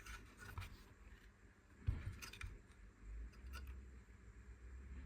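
Faint handling noises: scattered small clicks and scrapes, with one sharper thump about two seconds in.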